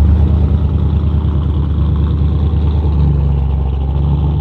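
Supercharged V8 of a 1957 Chevrolet Bel Air running at low speed as the car rolls past and pulls away: a loud, deep, steady engine note that eases off slightly toward the end.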